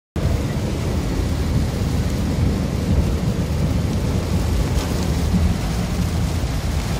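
Heavy rain on a moving car, heard from inside the cabin: a steady hiss of rain and tyres on the wet road over a constant low rumble.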